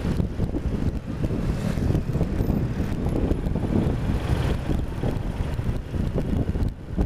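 Wind buffeting the microphone over the steady rumble of a cruiser motorcycle's V-twin engine while riding, with a brief dip in level near the end.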